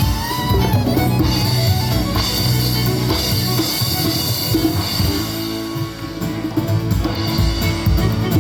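Live band playing a sound check: drum kit with bass drum and guitar in a full, loud mix.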